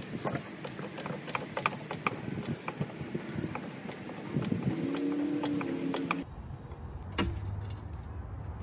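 Daytona hydraulic floor jack being pumped to lift the front of a car: a run of uneven mechanical clicks and knocks. After a sudden change in the background sound, there is one sharper metal knock.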